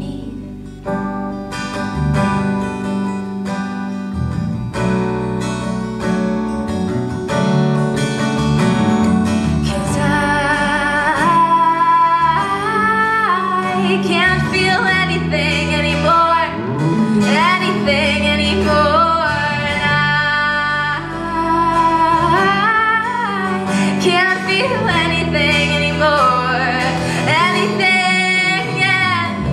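Live folk song: a young woman singing while strumming a steel-string acoustic guitar, with an electric bass guitar underneath. The opening stretch is mostly guitar and bass, and the voice comes in strongly about ten seconds in.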